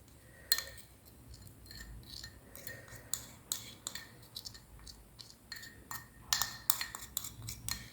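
Light clinks and taps of a metal spoon against a glass container while a homemade syrup is strained and stirred, the taps coming closer together near the end.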